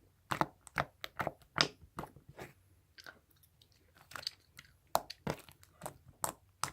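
Foam-bead slime being squeezed and stretched by hand, making short sharp clicks and crunchy pops, about a dozen of them at an uneven pace.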